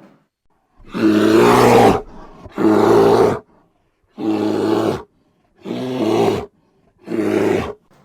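Bear roaring: five separate roars of about a second each with short silences between, the first two loudest.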